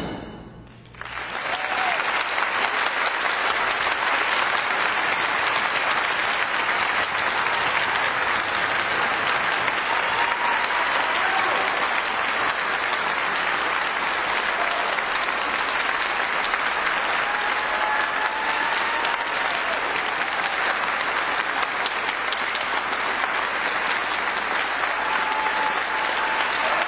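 A concert hall audience applauding steadily as an orchestral performance ends. The orchestra's final note dies away in the hall's reverberation, and the applause rises within about a second.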